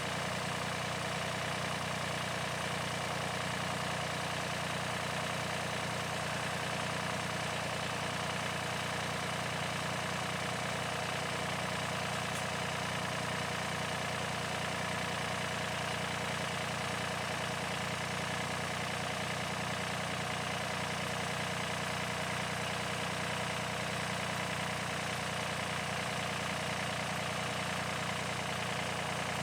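Hitachi 35 mini excavator's diesel engine running at a steady, even pitch.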